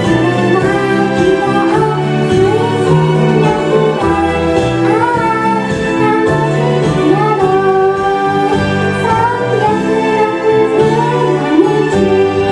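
Female voice singing a gentle pop ballad over a recorded backing track with a steady bass line.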